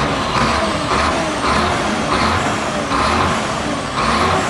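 Diesel engine of a Sinotruk Howo tractor truck running, its sound swelling and easing in an uneven pulse about once a second.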